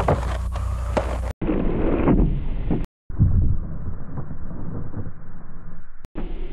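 Slowed-down camcorder sound: a low, steady rumble of wind on the microphone with a few dull knocks. The sound cuts out briefly twice and comes back more muffled.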